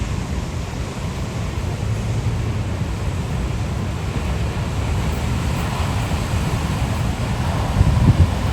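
Ocean waves washing against the shore, with wind rumbling on the microphone. There is a louder low rush near the end.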